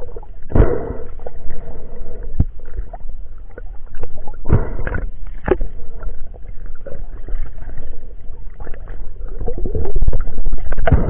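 Muffled underwater sound in a spearfishing dive: a constant low water rumble with several sharp knocks, the strongest around the middle, where the speargun shaft has struck a golden trevally. It swells into a louder rush of water and bubbles near the end.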